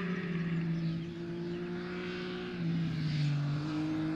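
Triumph Speed Triple RS's 1050 cc three-cylinder engine running at steady high revs on track. The pitch steps down slightly twice, and the sound gets a little louder about two and a half seconds in.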